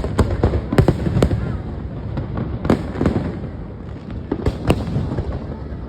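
Aerial fireworks bursting: an irregular string of sharp bangs, several in quick pairs, over a continuous low rumble of distant explosions.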